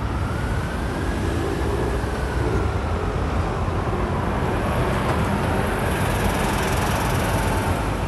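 Heavy road traffic passing close by, buses, a coach and cars, making a steady low rumble with a faint whine that slowly rises and falls in pitch.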